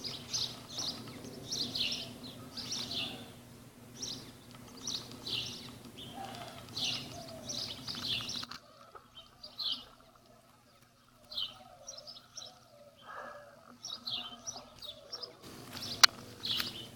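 Small birds chirping outdoors, short repeated chirps at about two a second, over a faint low steady hum in the first half. A single sharp click, the loudest sound, comes about a second before the end.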